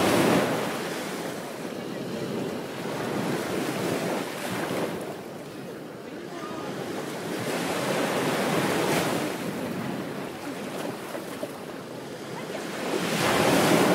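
Ocean waves breaking on a beach: a continuous wash of surf that swells and recedes with each wave. It is loudest right at the start and again near the end, with gentler breaks about four and nine seconds in.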